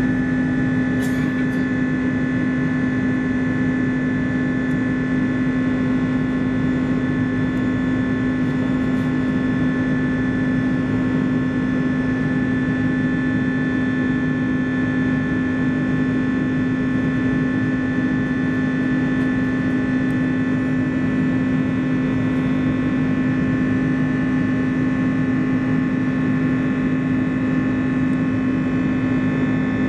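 Airbus A330-200's Pratt & Whitney PW4168A turbofan engines heard inside the cabin as a steady drone: a strong low hum and several high whines over a constant rush of noise, with no change in pitch. A faint click comes about a second in.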